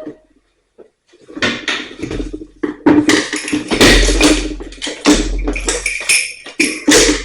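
Oscillating multi-tool cutting around an electrical box in a wall, running in loud start-and-stop stretches with a buzzing drone and rattling, after a short pause in the first second.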